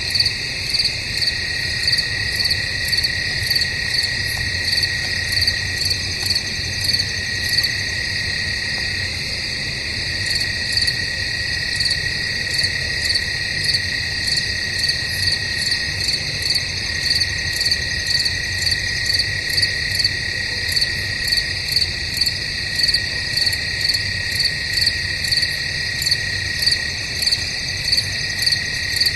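Night chorus of crickets in woodland: a steady high trill under a louder chirp that pulses about once a second without a break.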